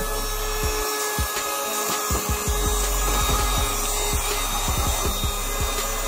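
Cordless mini handheld vacuum running steadily, its small motor giving a constant whine over a hiss as it sucks sand and grit off a tile floor, with scattered clicks as debris is drawn into the nozzle.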